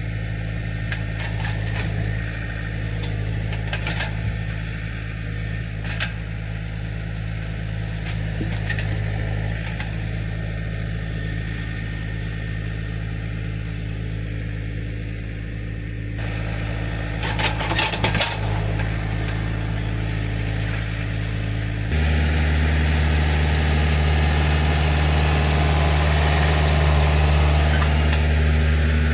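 John Deere 4044M compact tractor's four-cylinder diesel engine running steadily while it moves, getting louder and deeper about two-thirds of the way through as it comes close. A few light knocks sound over it in the first half.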